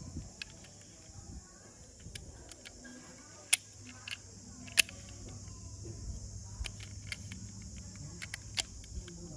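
Light clicks and taps of a die-cast metal toy SUV being handled, with two sharp clicks about a second apart, near the middle, as its little opening doors snap open and shut. A steady high hiss runs underneath.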